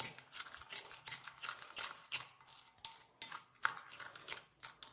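Spoon stirring and scraping a gritty ground-rice paste in a glass bowl: a faint run of quick, irregular scrapes and light clicks.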